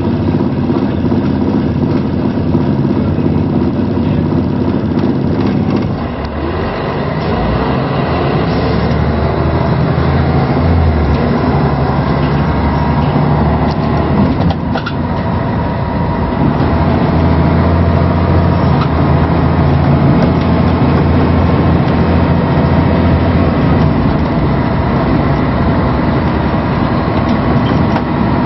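Scania L113CRL bus's diesel engine running continuously, its note dropping lower about six seconds in and growing louder from about seventeen seconds in.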